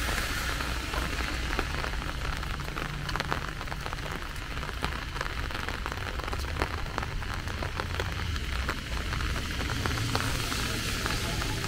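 Steady rain falling, with many small raindrop ticks close by over a low, steady rumble.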